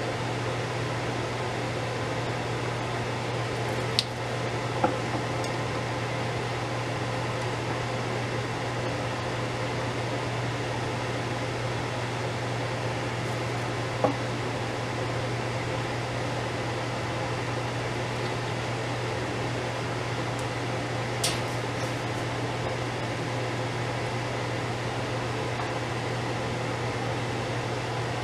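Steady hum of a vent fan, with a few short clicks and knocks as hot canning jars are lifted out of the water-bath canner with a jar lifter and set down on a wooden board.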